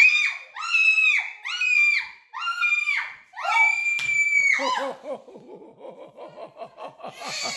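Screaming: five high-pitched shrieks in a row, each under a second long, with a sharp knock about four seconds in, then a stretch of fast, rapid-fire laughter.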